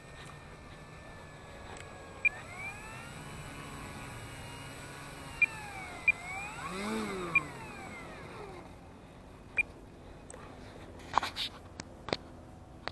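The whine of a small electric motor and propeller, such as a model aircraft's. Its pitch climbs about two seconds in, holds, swings down and back up, then fades away. A few sharp short beeps sound over it, and there are several clicks near the end.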